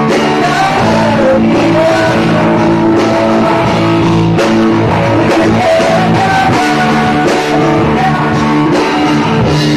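A rock band playing live, with electric guitars holding chords over a drum kit and a voice singing at the microphone.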